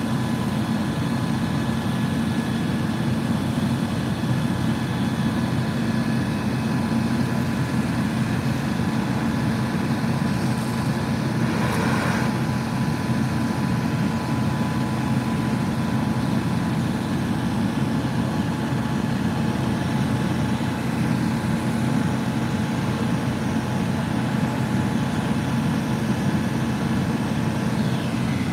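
Fire apparatus diesel engines running steadily at a fire scene, a continuous low hum from engines driving the pumps and aerial ladders.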